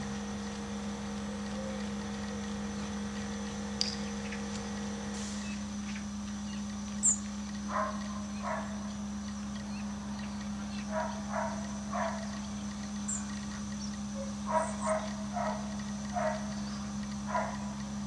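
Farmyard ambience: a steady low machine hum runs throughout. A sharp high bird chirp comes about seven seconds in, and a few more follow later. From about eight seconds on, short animal or bird calls sound in quick twos and threes.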